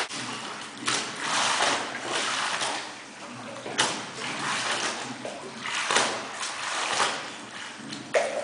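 Waves in a laboratory wave tank splashing and sloshing against a flood barrier. A surge of splashing comes about once a second, at the pace of the wave maker.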